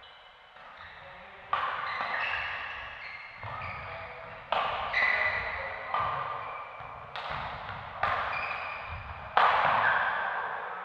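Badminton rackets hitting the shuttlecock in a fast doubles rally: about ten sharp hits roughly a second apart, each ringing on in the echo of a large hall.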